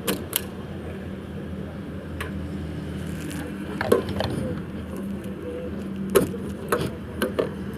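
Petrol station fuel dispenser running with a steady low hum while fuel is pumped, with several sharp clicks and knocks: a pair near the start, two about four seconds in, and a cluster near the end.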